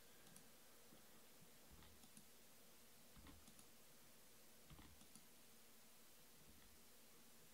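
Faint computer mouse clicks, a few short pairs about a second and a half apart, over near silence.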